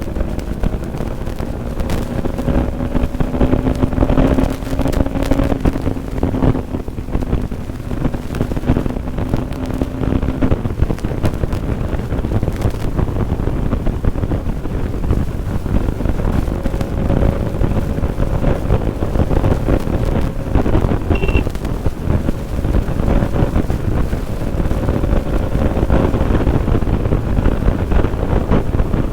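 Bajaj Pulsar NS200's single-cylinder engine pulling hard at high revs at speed, buried under heavy wind buffeting on the microphone. A faint whine climbs slowly in pitch as the bike gathers speed.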